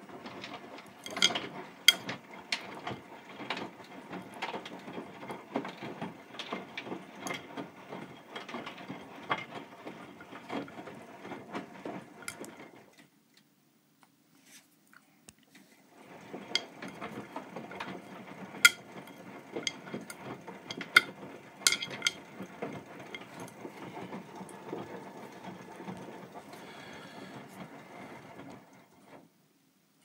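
Hotpoint washing machine running a wash cycle: the drum turns with a busy mechanical clatter and sharp clicks for about thirteen seconds, stops for about three seconds with only a faint hum left, then turns again for about thirteen seconds and winds down near the end.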